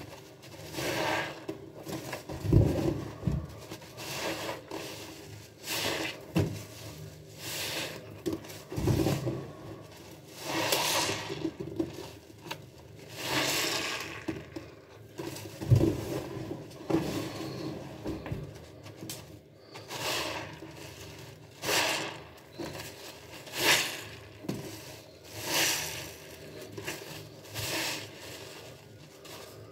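Foam-soaked sponges squeezed and wrung by hand, repeated every second or two. Each squeeze gives a wet, crackling burst of lather, and a few squeezes land with a heavier thud.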